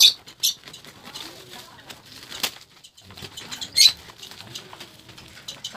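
Black plastic parcel wrapping crinkling and rustling as it is cut open with scissors, with a few sharper crackles, the loudest at the start and about four seconds in.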